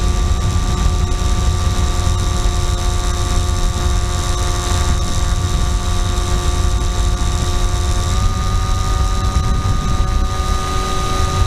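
FPV model aircraft's motor and propeller heard from the onboard camera, a steady whine with several tones over heavy wind rumble on the microphone. The pitch steps up slightly about eight seconds in, as the throttle changes.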